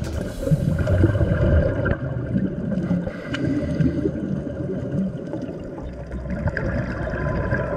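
Muffled underwater gurgling and rumble of a scuba diver's exhaled regulator bubbles, strongest about a second in and thinning out near the end.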